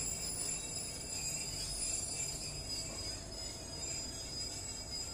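Covered goods wagons of a freight train rolling past, a steady high metallic ringing and jingling over a low rumble.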